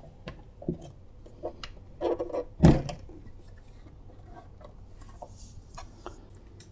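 Handling knocks and clunks as a turntable is turned over and set upside down on a workbench, with one louder thump a little under three seconds in, then lighter clicks and rustles.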